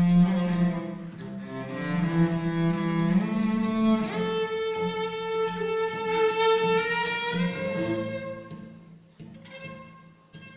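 Cello bowed in long held notes over a low steady note, sliding upward in pitch about seven seconds in, then fading quieter near the end.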